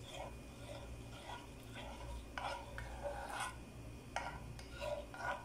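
A spoon stirring a warm liquid mixture in a small nonstick saucepan, scraping and clinking against the pan in a string of short strokes, with one longer scrape about halfway through.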